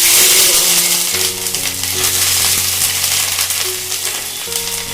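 Chopped ginger dropped into hot oil in a kadai, starting a loud sizzle all at once that keeps frying on, easing a little toward the end.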